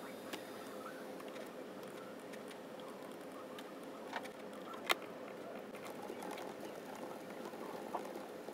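Quiet room tone with a faint steady hum, broken by a few light, scattered clicks from a computer mouse and laptop keyboard, the sharpest about five seconds in.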